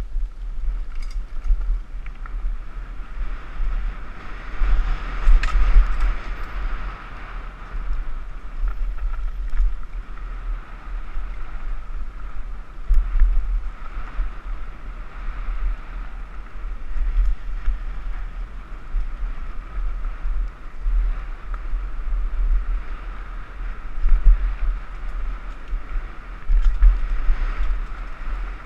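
Wind buffeting the microphone of a camera riding on a mountain bike descending at speed, over a steady hiss of tyres rolling on the dirt trail and occasional light rattles.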